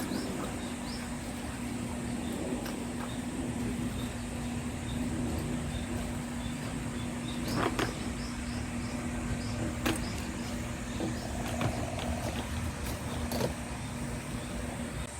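A steady mechanical hum holding one pitch, over a low rumble and a faint high hiss, with a few sharp clicks scattered through it.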